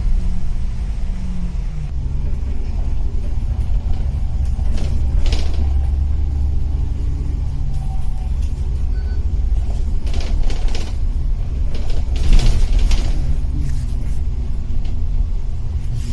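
Steady low rumble of a road vehicle, with a faint engine hum and a few brief hissing swells.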